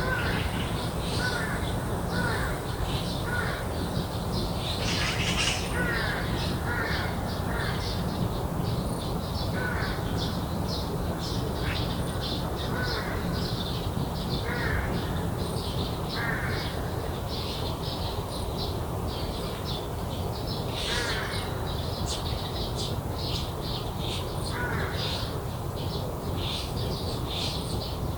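Birds calling in a garden: crows cawing again and again, with many small birds chirping quickly and high over them, above a steady low background hum.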